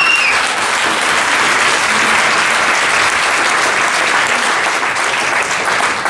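Audience applauding steadily, with a short whistle right at the start.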